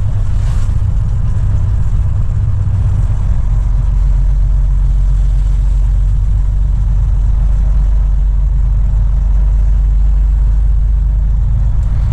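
Truck's diesel engine running, a steady low drone.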